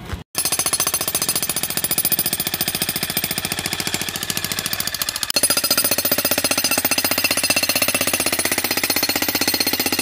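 Corded electric jackhammer pounding a concrete sidewalk slab: a fast, even hammering that runs without a break, changing in tone about five seconds in.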